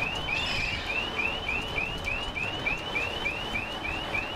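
Reversing alarm on a large mobile crane sounding a fast, steady series of rising electronic chirps, about four a second, as the crane backs into position.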